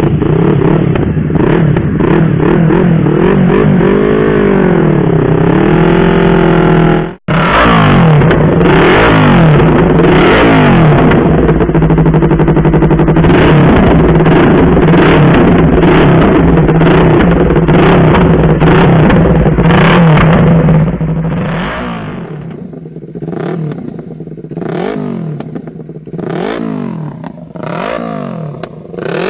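Yamaha R25's parallel-twin engine revving repeatedly, its pitch climbing and dropping again and again. The sound cuts out briefly about seven seconds in. In the last third it is quieter, with short bursts of throttle.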